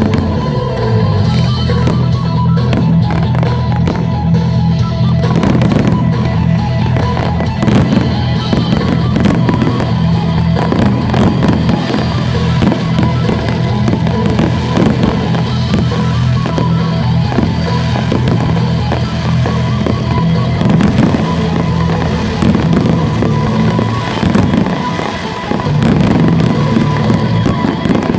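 Fireworks display with rapid, continuous bursts and crackling, over loud music played for the show.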